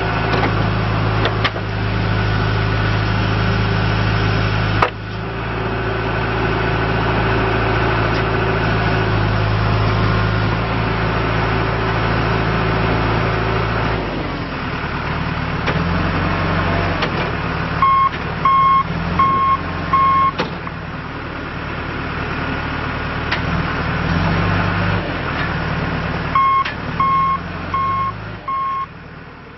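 John Deere 310G backhoe loader's diesel engine running steadily, its note changing about halfway through as the machine works. Its reverse alarm beeps four times, then four more times near the end, as it backs up.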